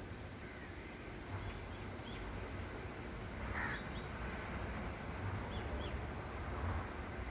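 Outdoor ambience: a steady low rumble with a few brief, faint bird chirps and one slightly longer bird call about three and a half seconds in.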